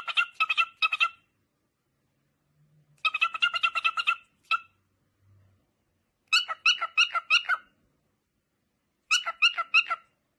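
An animal calling in bursts of rapid, high-pitched chirping notes, each burst about a second long, four times about three seconds apart.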